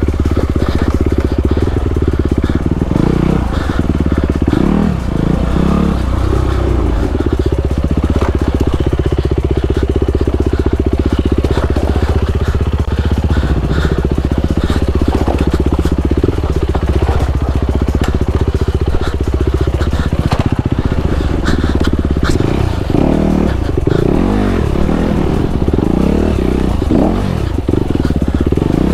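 Honda CRF250RX dirt bike's single-cylinder four-stroke engine running hard as it is ridden along a rough trail, the revs rising and falling with the throttle, with scattered knocks from the bike over the rocky ground.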